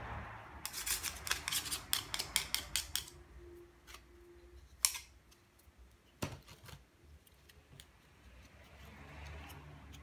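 A hand tool scraping and picking packed muck out of the plastic floor head of a Henry vacuum cleaner: a quick run of sharp scraping clicks, about four or five a second for a couple of seconds, then a few single clicks and knocks.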